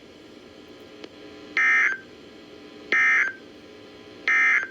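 Three short bursts of Emergency Alert System digital data tones played over a radio, each a buzzy warble lasting about a third of a second, spaced a little over a second apart, with faint radio hiss between them. This is the end-of-message code that marks the close of the alert.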